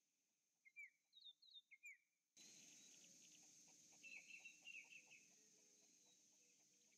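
Wild birds calling faintly: short falling chirps in quick pairs in the first two seconds, then a rapid chattering run of notes about four seconds in. Under them runs a faint steady hiss that jumps suddenly louder about two and a half seconds in.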